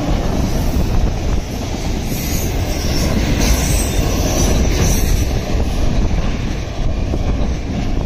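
Freight train of autorack cars rolling past close by: a loud, steady rumble and rattle of steel wheels on the rails, with a thin high wheel squeal from about two to five seconds in.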